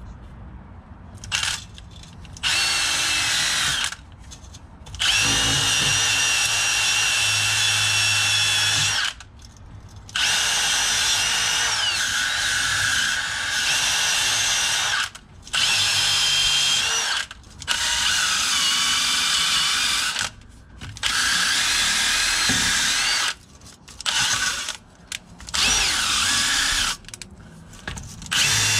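Hand-held drill spinning a wire wheel against the open face of a rear differential housing. It stops and starts about nine times, in runs of one to five seconds, and its whine rises and falls as the speed changes.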